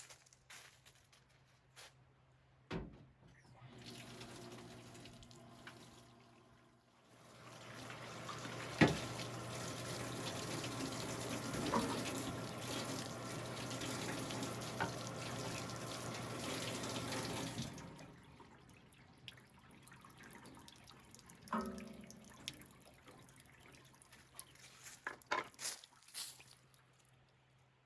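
Water running steadily for about ten seconds, starting about seven seconds in and stopping suddenly, with a few scattered knocks and clicks before and after.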